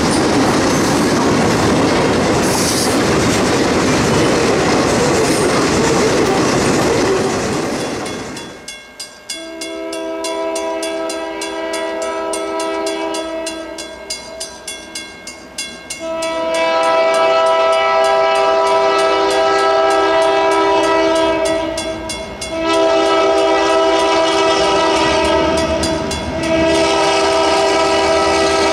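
Loaded freight hopper cars rolling close past, a loud steady rumble of wheels on rail with clickety-clack. About a third of the way in this gives way to a diesel locomotive's multi-note air horn, sounding a series of long blasts with short breaks as it approaches a grade crossing.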